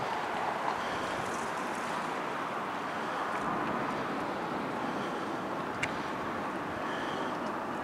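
Steady rushing outdoor background noise with a few faint, short high chirps and a small click about six seconds in.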